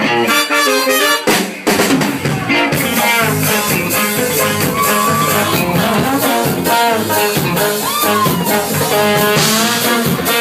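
Live band playing an upbeat song with drums and melodic instrument lines. There is a brief break about a second and a half in before the band comes back in.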